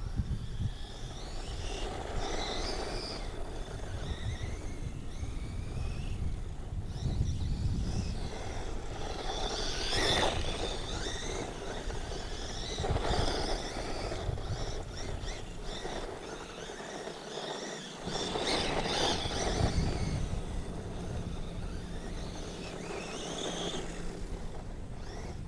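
A ZD Racing Rocket 1/16-scale brushless RC desert truck being driven: its electric motor whines, the pitch rising and falling with the throttle. It is loudest in a few bursts of speed about ten, thirteen and nineteen seconds in.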